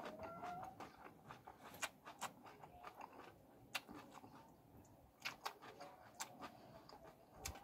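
Close-miked wet chewing and lip smacks from someone eating spicy fish curry by hand, heard as scattered soft clicks at an uneven pace.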